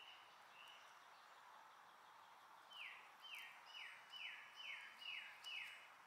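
A songbird singing a run of seven clear, downslurred whistled notes, about two a second, beginning about three seconds in. A few faint short chirps come before it, over faint steady background noise.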